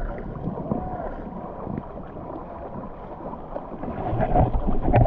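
Muffled, crackling gurgle and splashing of river water, heard through a GoPro microphone still waterlogged after being submerged. The sound gets louder near the end.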